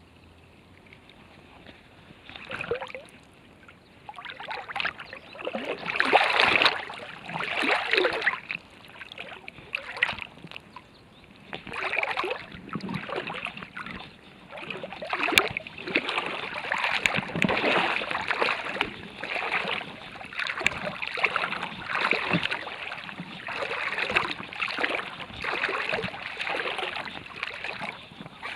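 Footsteps crunching on the riverbank, about one step a second.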